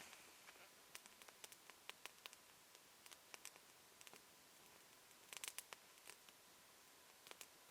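Faint crackling of a small wood campfire: scattered irregular pops and snaps, a quick cluster of them about five seconds in.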